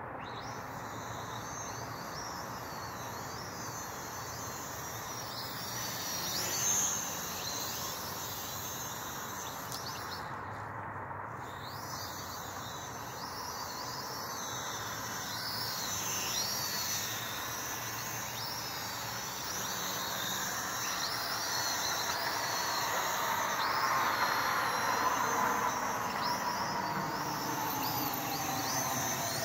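High whine of a small remote-control aircraft's electric motors, pitch wavering up and down as the throttle changes, cutting out briefly twice. A car passes near the end, its noise swelling and falling in pitch.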